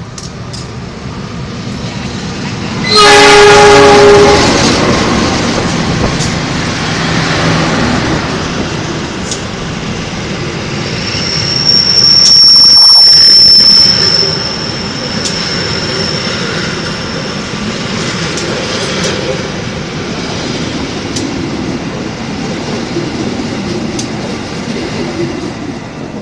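Diesel locomotive sounds one horn blast about three seconds in, then it and its passenger coaches run close past with rumbling and wheel clatter on the rails. About eleven seconds in, a high, steady wheel squeal starts and runs for several seconds, the loudest stretch of the pass.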